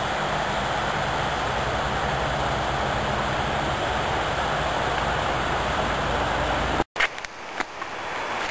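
Steady rushing outdoor noise that cuts off abruptly about seven seconds in, followed by quieter background and a few light steps on rocky ground.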